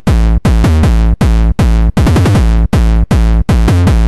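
Electronic music soundtrack with a drum-machine beat, synthesizer and heavy sustained bass, at about two and a half beats a second.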